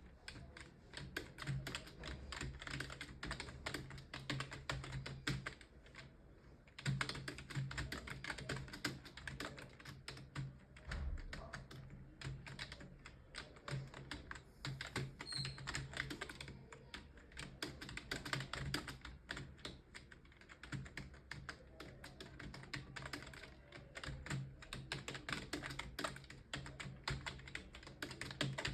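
Fast, continuous typing on a computer keyboard, with rapid key clicks and a brief pause about six seconds in. A steady low hum runs underneath.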